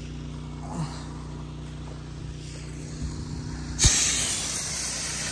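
Steady hum of a soft-wash rig's engine-driven pump. About four seconds in, the spray gun opens with a sharp knock and a loud, steady hiss of chemical spraying out.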